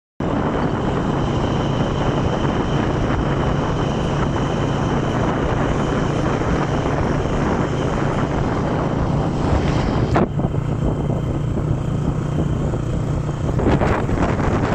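Heavy wind noise on the microphone over a steady engine hum, recorded from a moving vehicle. The sound breaks off suddenly about ten seconds in and changes again near the end.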